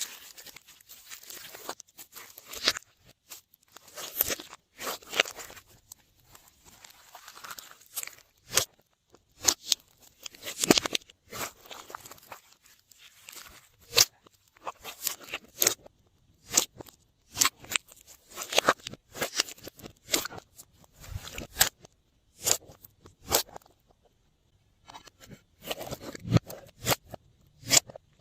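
Glossy slime being worked by hand, giving an irregular run of sharp clicks, pops and squelches with short pauses between handfuls.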